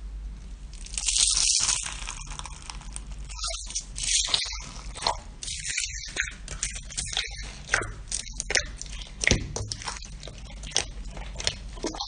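Slime being squeezed and poked by hand, giving a fast irregular run of sharp crackles and squishy pops, with a short hissy squelch about a second in.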